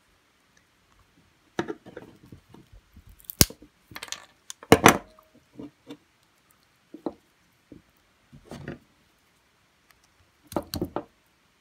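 Pliers prying apart a small plastic rocker switch: irregular clicks and cracks of plastic giving way, the two sharpest about three and a half and five seconds in, and another quick cluster near the end.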